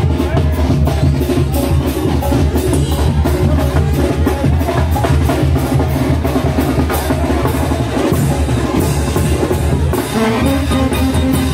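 Oaxacan brass band playing, with a low bass line moving in steps under the horns and a steady, even beat of drums and cymbals.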